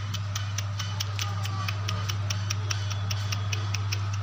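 A steady low hum with a fast, even ticking over it, about five ticks a second.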